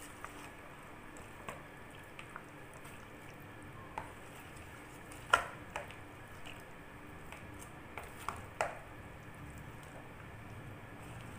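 Raw chicken in a yogurt and spice marinade being stirred and turned with a spoon in a plastic bowl: faint wet squelching, with scattered sharp clicks of the spoon against the bowl, the loudest about five seconds in and again near eight and a half seconds.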